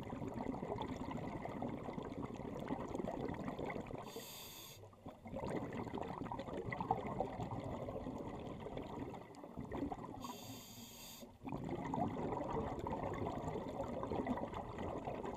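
Scuba diver breathing through a regulator underwater: a short hissing inhale about four seconds in and another at about ten seconds, each followed by several seconds of crackling, bubbling exhale.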